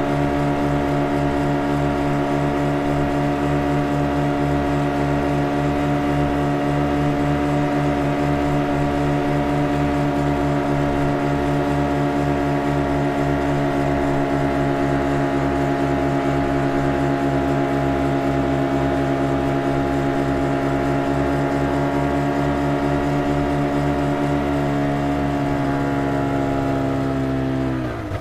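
Motorboat engine running hard at a steady high speed, one even pitch with a pulsing low rumble, then dropping in pitch near the end as it is throttled back.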